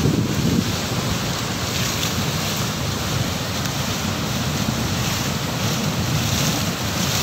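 High-volume reservoir water rushing through a dam's concrete spillway channel after heavy rain, a steady rush. Wind buffets the microphone.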